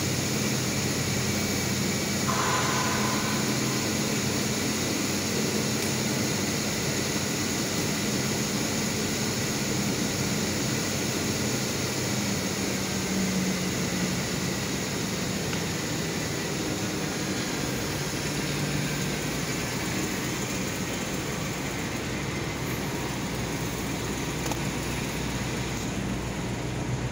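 Power convertible top of a 2002 Ford Thunderbird running as it raises and closes, a steady mechanical hum under a constant background hum.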